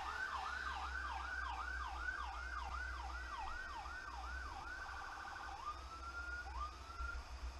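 Emergency vehicle electronic siren in yelp mode, sweeping up and down about twice a second. About five seconds in it switches briefly to a fast warble, then gives two short rising whoops and stops near the end. A low vehicle rumble runs underneath.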